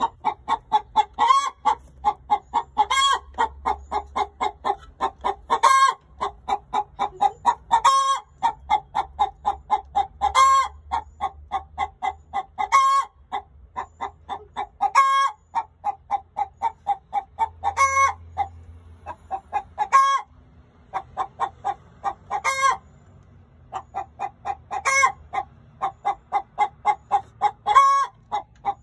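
A hen cackling: runs of quick clucks, about five a second, each ending in a louder, higher squawk, repeated every two to three seconds. It is the rhythmic cackle or egg song a hen gives around laying.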